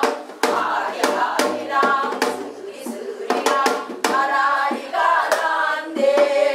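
A mixed group of men and women singing a Korean namdo folk song together, with sharp hand claps or strikes keeping an uneven beat.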